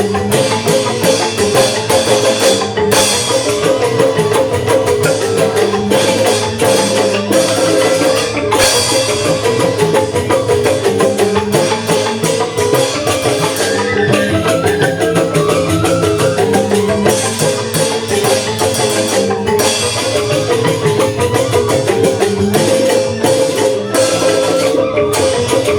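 Balinese joged bumbung gamelan playing: bamboo-tube xylophones (grantang) struck in quick, dense patterns, with percussion keeping time.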